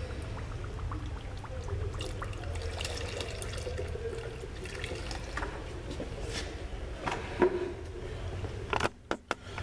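Water gurgling and splashing in a container, with scattered small clicks over a steady low hum; the sound drops away briefly near the end.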